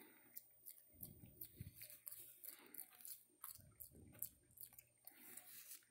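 Near silence with faint clicking and rustling from macaques grooming, one picking through the other's fur close to the microphone, with a couple of soft low rustles about a second in and again near the middle.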